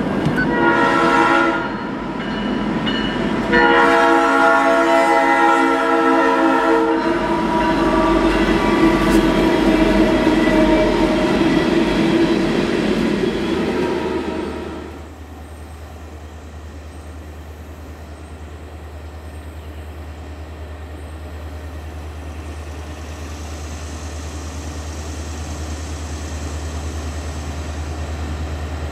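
Leslie S5T five-chime air horn on a CSX freight locomotive sounding a blast that ends about a second and a half in, then a longer blast of about three seconds, with the loud rumble of the train running on until about halfway through. The sound then drops to a steady low hum.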